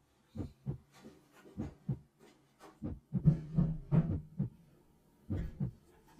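A man grunting and breathing hard in short, irregular bursts as he strains to lift a heavy bench oscilloscope of about 60 pounds.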